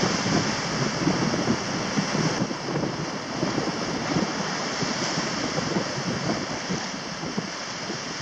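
Wind buffeting the microphone over the steady wash of choppy sea and small breaking waves.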